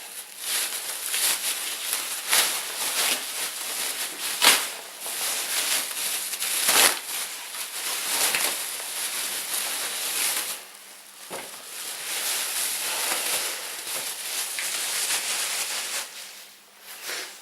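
Plastic packaging crinkling and rustling as it is handled and opened, with irregular sharp crackles throughout and a brief lull about two-thirds of the way through.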